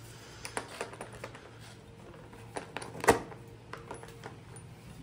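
Loose metal bicycle parts and hand tools being handled: scattered sharp clicks and taps, with one louder knock about three seconds in.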